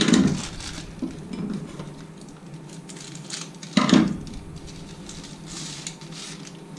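Two sharp knocks of things set down on a kitchen worktop, about four seconds apart, with the crinkle of pastry wrapping being handled between and after them.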